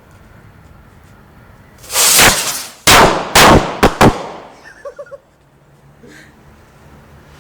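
Firecrackers going off: one loud burst about two seconds in, then four sharp, loud bangs over about a second, followed by a few faint pops.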